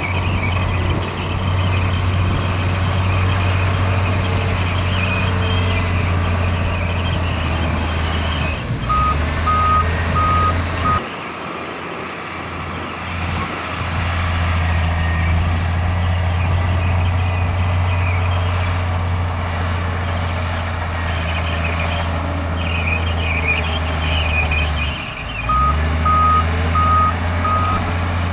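Heavy diesel earthmoving machinery running steadily, with a reversing alarm beeping twice in short runs, about nine seconds in and again near the end. The engine sound drops away for a couple of seconds after the first run of beeps, then picks up again.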